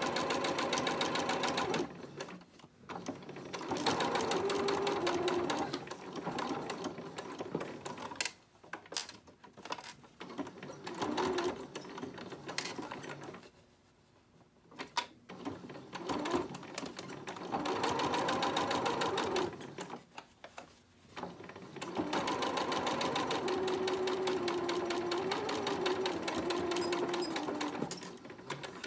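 Electric home sewing machine stitching fabric, stopping and starting: several runs of a few seconds, the longest near the end, with short bursts and pauses between them.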